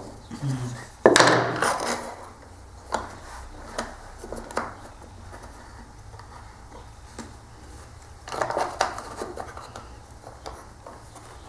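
Hands handling wooden and metal jig parts on a router table: a clatter about a second in, a few separate knocks, then another clatter near the end, as the workpiece and clamps are set in place.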